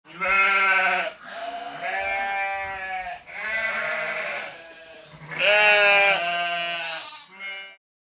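Sheep bleating: about five bleats one after another, four long and one short near the end.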